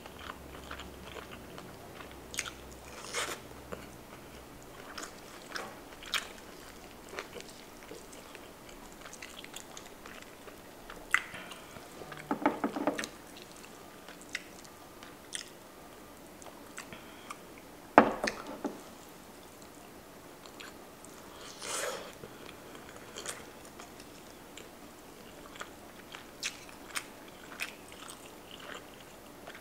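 Close-miked eating: sparse wet mouth clicks and smacks of chewing and biting shrimp and mushrooms. A few louder sounds stand out, the sharpest a knock about eighteen seconds in.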